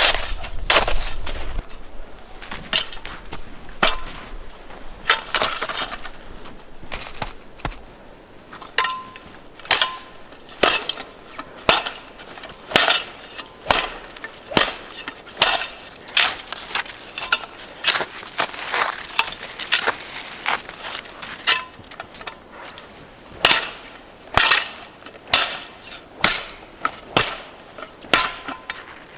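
Snow shovel biting into and scraping packed snow while a snow cave is dug, a sharp crunching stroke about once a second.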